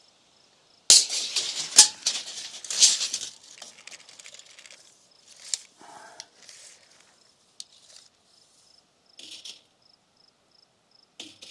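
A sharp knock about a second in, then two to three seconds of rattling and scraping with further clicks, tailing off into scattered smaller clicks and rustles. Crickets chirp faintly in the background.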